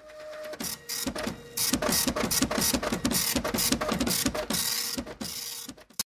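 Desktop printer printing a page: a run of rhythmic mechanical strokes, about four a second, with a hissing sweep over them. It builds up over the first second or so, then fades and stops just before the end.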